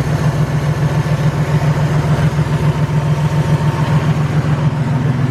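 Toyota Tacoma engine idling steadily with a freshly replaced idler pulley on its accessory belt; it runs quieter, with the ticking and knocking that the worn idler pulley caused now gone.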